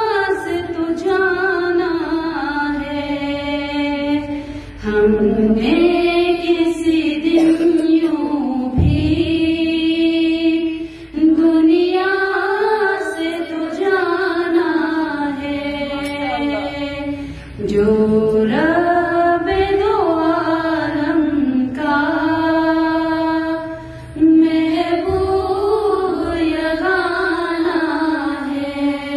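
A woman singing an Urdu naat unaccompanied into a microphone, in long, slowly gliding melodic phrases with a short breath break about every six seconds.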